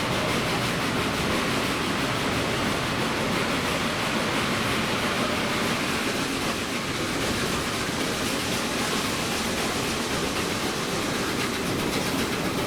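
Passenger train in motion: a steady rushing of air and wheel-on-rail noise, with no clear beat or change.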